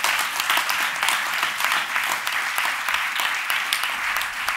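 Audience applauding: a dense, steady round of many people clapping.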